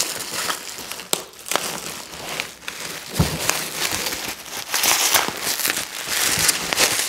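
Packaging wrap crinkling and crackling as it is cut open and pulled off a boxed set of gym bars, with a few sharp clicks and knocks along the way.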